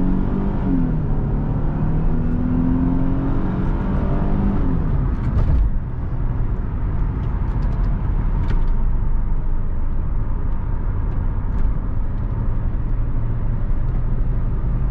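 Car driving: engine notes rising and falling as it pulls away for the first few seconds, a single thump about five and a half seconds in, then a steady engine and road-noise rumble heard from inside the car.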